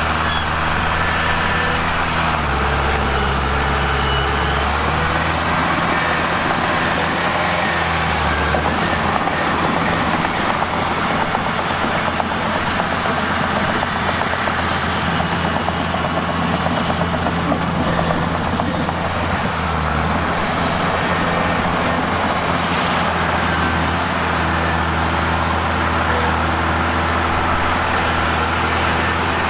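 Bulldozer's diesel engine running steadily, its pitch stepping up and down several times as the load changes, with a rough grinding noise through the middle stretch.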